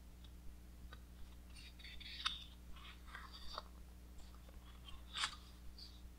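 A large page of a big hardcover art book being handled and turned: soft paper rustling with two sharp crackles, the second about five seconds in as the page flips over.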